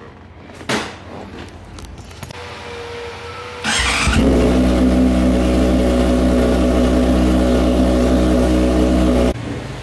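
Honda Hornet motorcycle's inline-four engine started on the button and running steadily for about five seconds, then stopping suddenly. Before it there is a click and a short whine.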